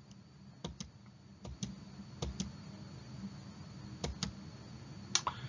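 Light clicks at a computer, about five clusters, most of them quick pairs, over a faint steady electrical hum, as the presenter works the computer to advance the slide.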